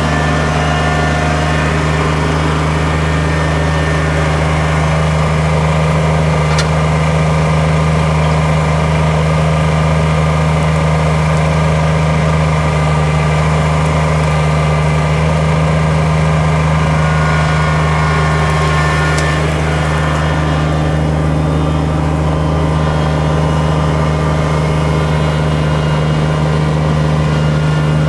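Kubota tractor's diesel engine running steadily at a constant speed, with a deep, unchanging hum.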